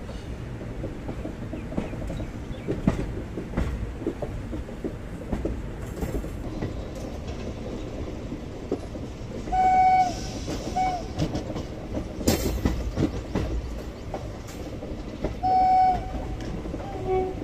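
Express passenger coaches rumbling and clicking over the rail joints at speed. The WAP-7 electric locomotive ahead sounds its horn in two pairs, a longer blast then a short one, about ten seconds in and again about sixteen seconds in. There is a louder clatter of wheels between the two pairs.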